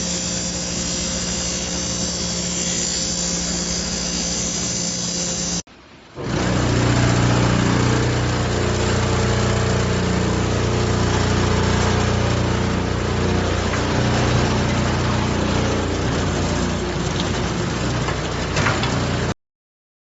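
Stator winding cutting and removal machine running: a steady motor hum under a dense, hissy cutting noise. After a brief break about six seconds in, it runs louder, with a stronger low hum, then stops abruptly near the end.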